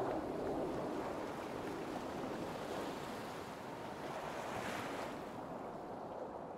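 Ocean surf with wind, a steady wash of noise that slowly fades, with a brief brighter swell of hiss a little after four seconds in.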